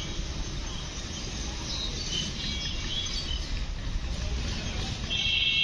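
Outdoor ambience: birds chirping over a steady low rumble. About five seconds in, a loud, steady high-pitched buzz starts.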